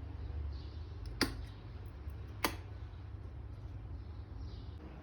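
Two sharp clicks about a second and a quarter apart over a low steady hum.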